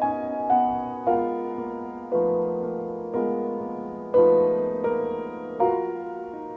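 Background music: a slow, gentle piano piece, notes and chords struck about once a second and left to ring and fade.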